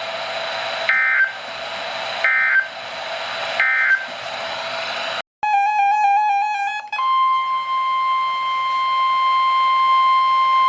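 Emergency Alert System tones: three short digital data bursts (the end-of-message code), then after a brief break a quickly stepping warble of data tones opening the next alert. About seven seconds in, a steady single-pitch weather-radio warning tone near 1 kHz starts and holds for about five seconds.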